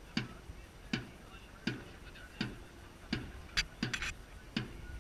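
Dragon boat crew paddling in time: a steady beat of sharp strokes about every three-quarters of a second, with a brief flurry of extra knocks near the middle.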